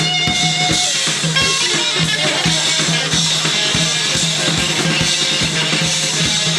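Live band playing: electric guitar over a drum kit keeping a steady beat.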